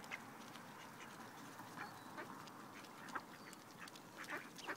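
Mallard ducks and ducklings feeding on bread crumbs: faint, scattered short quacks and clicks, coming more often near the end.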